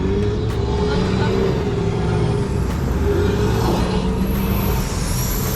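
Heavy engine running steadily with a low rumble, a wavering mid-pitched whine over it, and a faint high whine rising in the last second or so.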